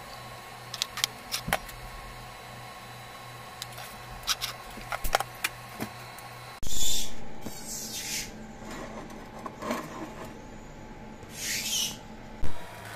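Hand tools and small metal parts clicking and tapping on a metalworking bench, then a few short scraping or rubbing strokes and a sharp knock near the end.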